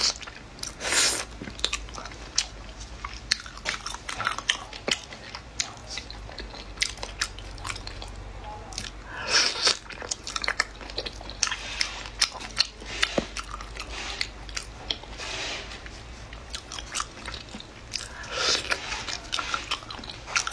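Close-up eating of sweet-spicy Thai-style shrimp: repeated biting and crunching with chewing in between, irregular, with several louder bites.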